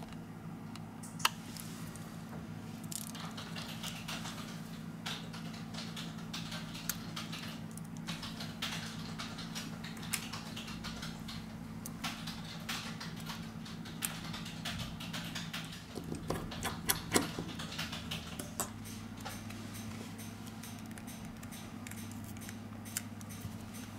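Small clicks, taps and scrapes of Samsung Galaxy S5 parts being handled: tweezers and fingers on the circuit boards and the plastic-and-metal phone frame, with a cluster of sharper clicks about two-thirds through, over a steady low hum.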